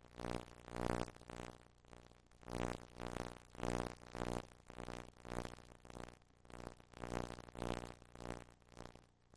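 Background music: sustained notes with a regular pulsing beat.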